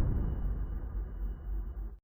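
The low rumbling tail of a boom sound effect dying away, cut off abruptly at the very end, with a faint thin high tone held over it.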